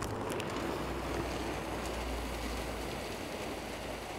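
Wood pellets pouring from a plastic bag into the steel hopper of a Yoder YS640s pellet grill: a steady rushing hiss that drops off abruptly at the very end.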